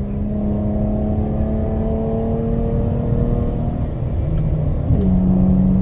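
Dodge Challenger GT's 3.6-litre V6 exhaust through Cherry Bomb Extreme mufflers, heard inside the closed cabin, pulling under throttle in 4th gear with a steady tone that rises slowly. About four seconds in the pitch drops as the transmission shifts up to 5th, and the engine settles on a new steady tone.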